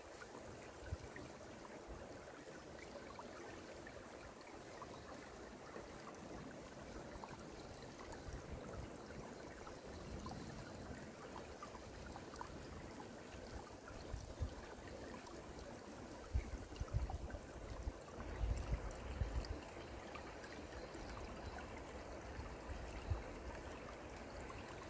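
Shallow mountain stream trickling and babbling over stones, faint and steady, with a few low rumbles on the microphone about two-thirds of the way through.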